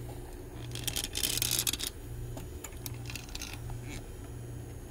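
Small metallic clicks and a short scraping rattle about a second in, as screws are handled and driven back into a cassette deck's metal case.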